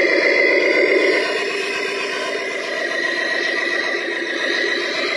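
Radio-controlled FAW Jiefang dump truck running as it drives, a steady mechanical whir with a fast fine rattle that drops a little in loudness about a second in.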